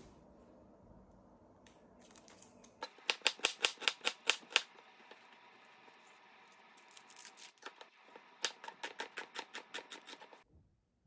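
Kitchen knife chopping a red onion on a wooden cutting board, in quick even chops about seven a second. A short run comes about three seconds in and a longer run from about seven seconds, stopping just before the end.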